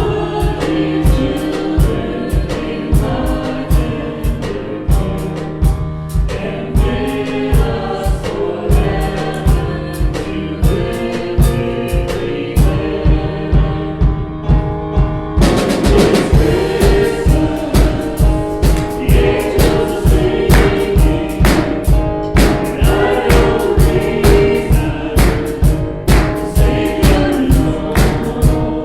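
Worship song with group singing over a steady drum beat; the band gets fuller and louder about halfway through, with a cymbal wash.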